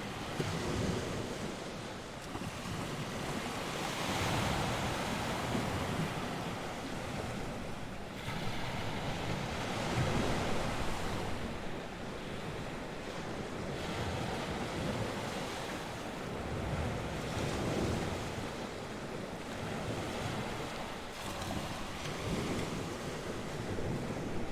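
North Sea waves washing onto the shore, swelling and falling back every few seconds, with wind blowing over the microphone.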